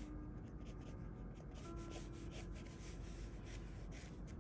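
Graphite pencil sketching on sketchbook paper: a run of short, soft scratching strokes.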